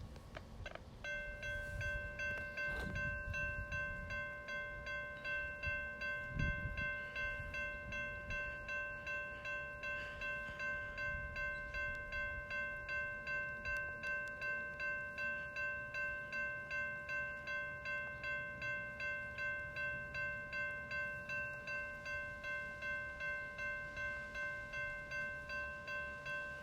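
Safetran Type 2 electronic railroad crossing bell ringing. It starts suddenly about a second in, then rings a steady, even series of metallic dings at about two a second.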